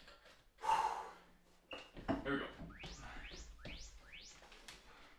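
Workout interval timer signalling the start of a new exercise interval: a short electronic beep about two seconds in, then about five quick rising chirps in a row.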